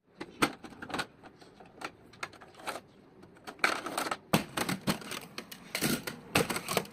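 Irregular clicks, knocks and short scratchy rattles of hard plastic being handled, as an air conditioner's panel and filter screens are worked on by hand.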